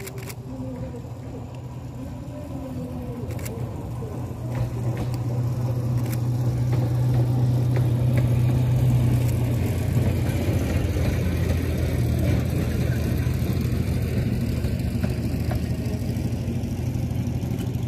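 A narrow-gauge forest railway train's diesel engine running. It grows louder from about four seconds in as it draws near, then runs steadily close by. A few sharp clicks come in the first seconds.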